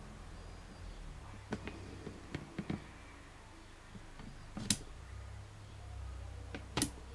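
Several sharp clicks or snaps over a low steady hum. Three or four small ones come between about a second and a half and three seconds in, and two louder ones follow about two seconds apart near the end.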